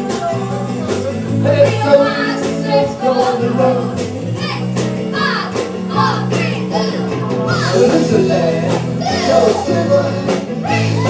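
Live band playing a song: acoustic guitar and other guitars under women singing into microphones, with steady low notes and a regular beat throughout.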